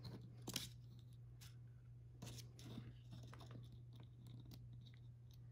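Faint handling noises: scattered small clicks and scrapes of a wire connector being fiddled onto a metal electrode, over a steady low hum.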